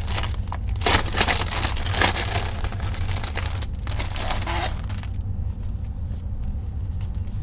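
Plastic packaging crinkling and rustling as a folded cross-stitch fabric is slid out of it, in several bursts that stop about five seconds in, leaving only faint handling.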